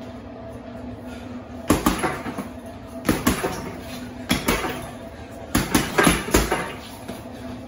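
Punches landing on a 100-pound heavy bag in short combinations of two to four thuds, a burst about every second and a half after a quiet start.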